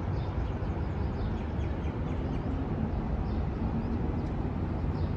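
Outdoor city ambience: a steady low rumble with many faint, short bird chirps over it.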